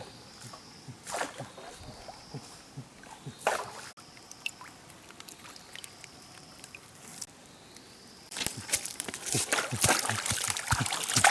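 Water splashing and sloshing in scattered bursts, becoming busier and louder about eight seconds in.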